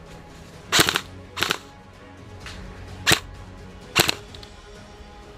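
Airsoft guns firing: a short burst of shots about a second in, then single cracking shots spaced a second or so apart.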